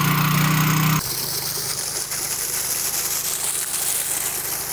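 A small gasoline-engine water pump running, its pitch rising just before the sound changes abruptly about a second in. Then water and Orbeez gush from a hose into the water-filled dump-truck bed, a steady hiss with the engine still running faintly beneath it.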